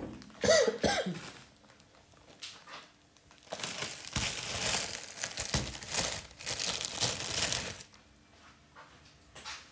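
Plastic bag of bagels crinkling as it is handled and opened and a bagel is pulled out, for several seconds from about three and a half seconds in. About half a second in there is a short vocal sound.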